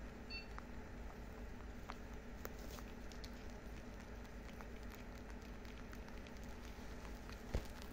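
Lop-eared rabbits chewing and nibbling dry hay: faint, scattered crunching clicks over a low steady hum, with one louder knock near the end.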